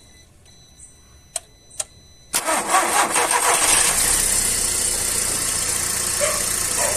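Two light clicks, then a car engine cranks and starts about two seconds in, settling into a steady idle.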